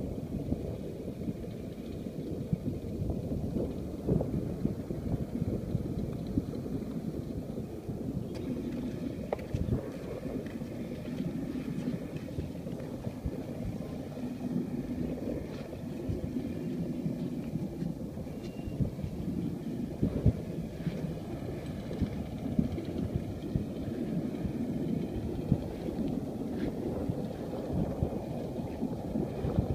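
Wind buffeting the microphone, a steady low rumble with frequent small knocks. A faint, steady hum of a distant engine runs underneath from about a third of the way in until near the end.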